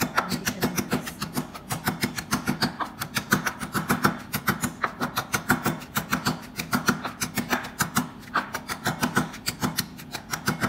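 Wooden pestle pounding salted garlic in a wooden mortar: rapid, even knocks, about five or six a second.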